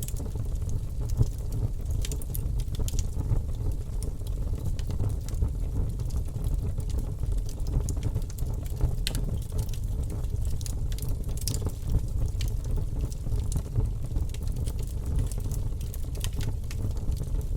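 Wood campfire burning: irregular sharp crackles and pops from the burning wood over a steady low rumble.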